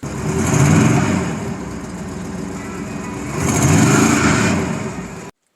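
Old carbureted truck engine running and revved up twice, its pitch rising and falling back each time, before cutting off suddenly. The truck stumbles on acceleration once warm, which the owner suspects is a vacuum leak.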